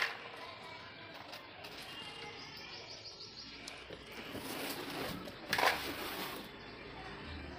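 Small birds chirping faintly, with a sharp click at the start and a short clatter about five and a half seconds in, as sweets are put into a plastic toy truck.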